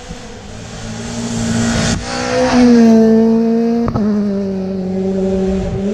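Rally car passing at speed on a gravel stage. Its engine rises to a peak and drops in pitch as it goes by, with a hiss of thrown gravel. A single sharp crack comes about four seconds in, and the engine note then carries on steadily as the car drives away.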